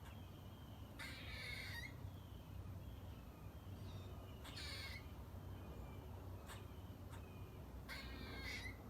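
A squirrel giving three harsh, rasping calls, each under a second long and about three seconds apart, with a few faint clicks in between.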